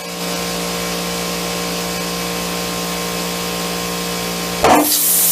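Air compressor motor running steadily, with a short burst of air hiss near the end.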